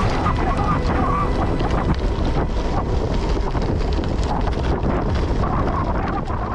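Wind buffeting the microphone of a handlebar camera on a moving gravel bike, over the steady crunch of tyres rolling on a loose gravel track.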